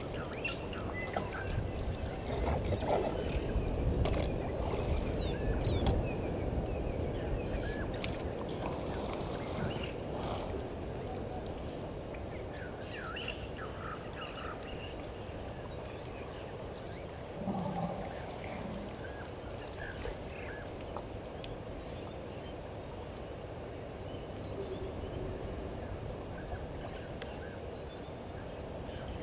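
Waterhole ambience at dusk: a small creature's short high call repeating about once a second, with scattered faint chirps. A low rumbling noise swells and fades in the first several seconds.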